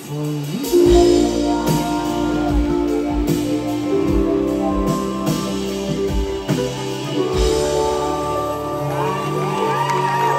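Live band playing a song's instrumental passage, with acoustic guitars and drum kit: sustained chords with a drum hit roughly every second.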